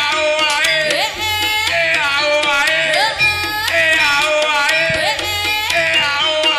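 Live East Javanese jaranan music: a melody over hand drums, with a rising pitch slide about every two seconds.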